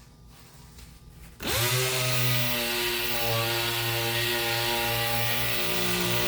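Electric sander switched on about a second and a half in, spinning up with a rising whine and then running steadily with a hum and a sanding hiss.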